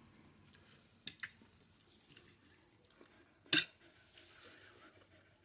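A few short clicks of cutlery against a dish, the sharpest about three and a half seconds in.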